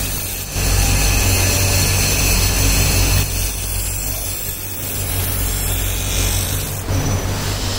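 Shaft-driven electric grinding wheel running with a steady motor hum while a wootz-pattern steel knife blade is ground against it, giving a harsh, hissing grind that dips briefly a couple of times.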